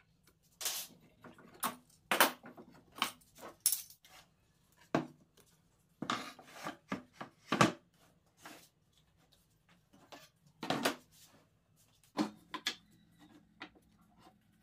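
Irregular knocks, clicks and short scrapes of a plywood crosscut sled, a hex key and a steel framing square being handled on a table saw's metal top. No saw is running.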